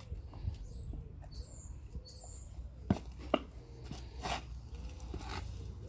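Small birds chirping in short, high calls, with two sharp knocks about halfway through and a brief scrape soon after, over a low rumble of wind.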